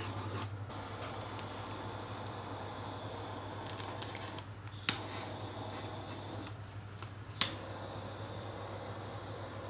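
Handheld gas torch burning as it singes the hair off a whole piglet's skin: a steady low hum with a faint hiss, broken by a few sharp clicks midway and one more later.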